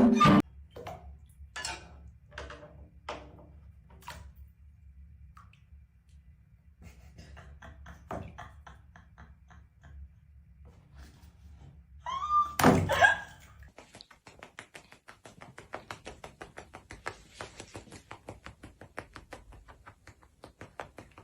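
Scattered knocks and thumps, a louder burst about halfway through, then a quick run of light taps.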